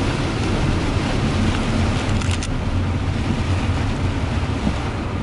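Cabin noise of a van driving on a rain-soaked road: a steady low engine and road rumble under an even hiss from the tyres on the wet surface, with a brief crackle about two seconds in.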